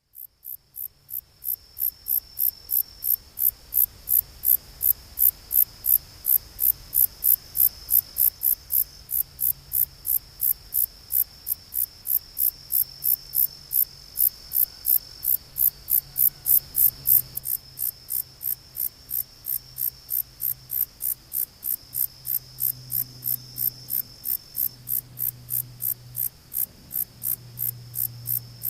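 Long-tailed meadow katydid (Conocephalus gladiatus) singing: a loud, high-pitched, dry chirp repeated evenly about three times a second.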